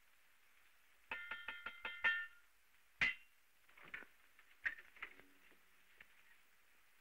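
A quick run of about six ringing metallic clinks, then one sharp clink about three seconds in, followed by a few scattered softer knocks.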